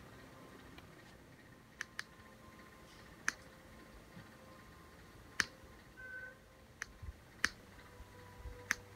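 Acworth 36-inch dual-blade ceiling fan running on low speed with a faint steady hum. About seven sharp clicks fall at irregular intervals, not from the remote control, and a short high beep sounds about two-thirds of the way in.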